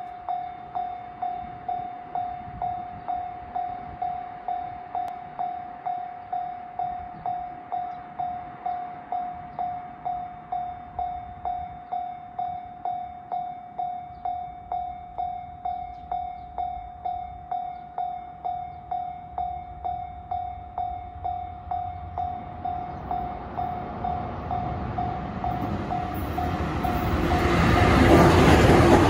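Japanese level-crossing warning bell sounding its repeating electronic ding, a bit under two a second, while the barriers are down. Over the last few seconds a 413 series electric train's rumble and rail noise grow louder, swamping the bell as the train reaches the crossing.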